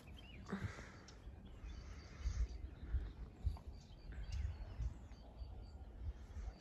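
Outdoor hillside ambience: gusts of wind rumbling on the microphone, with a few faint bird chirps in the background.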